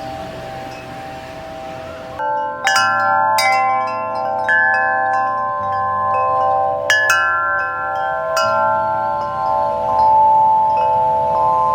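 Nature's Melody Aureole Tunes 42-inch wind chime, its six tuned aluminium tubes struck by the striker and ringing with long, overlapping tones. The ringing is soft at first, then a run of fresh strikes starts about two seconds in and keeps the chime sounding.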